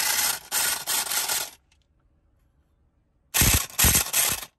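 Ryobi cordless power inflator's compressor running in short bursts, switched on and off, with a loud hissing whir. One burst stops about a second and a half in, and after nearly two seconds of quiet another runs for about a second.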